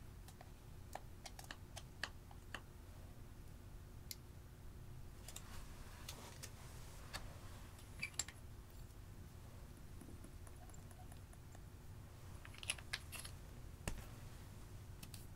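Scattered light clicks and taps of plastic makeup compacts, jars and tools handled over glass baking dishes, with a few sharper clicks about eight seconds in and again near the end, over a faint low hum.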